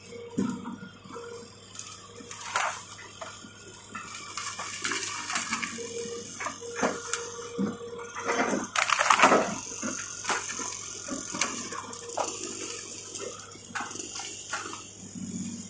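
Crawler excavator pushing its bucket through felled brush: branches snapping and crunching in irregular cracks, loudest in a cluster about nine seconds in, over the faint steady hum of the machine.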